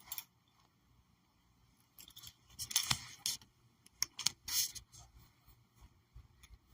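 A cluster of sharp clicks and short scraping rustles in the middle, with a lone click right at the start and only faint ticks after them.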